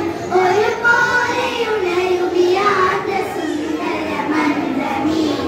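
A group of young girls singing a Malayalam patriotic song together, the melody moving between held notes.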